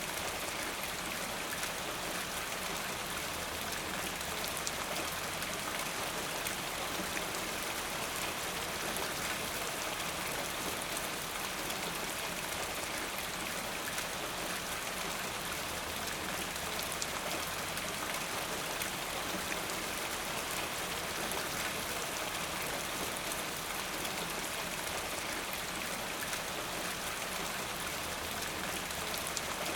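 Steady rain falling, an even hiss full of fine drop patter, with no change in intensity.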